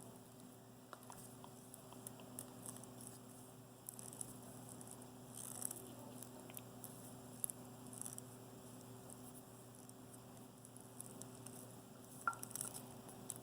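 Faint scraping and scattered small clicks of a network-cable cutter scoring and pulling the insulation off a spark plug wire, with a louder click near the end. A low steady hum runs underneath.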